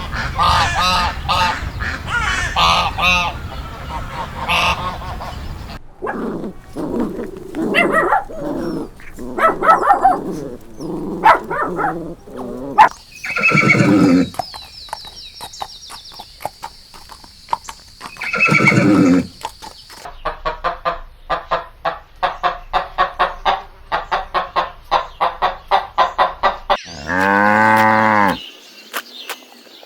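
Farm animals calling in a string of cut-together clips. It opens with many overlapping calls, then gives single calls and two loud drawn-out calls. A fast run of short repeated calls follows, and a long low call comes near the end.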